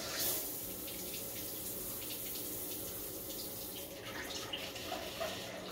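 Water spraying steadily from a Clear Rear bidet seat's feminine-wash ('woman cleaning') nozzle, splashing onto a hand held over the toilet bowl.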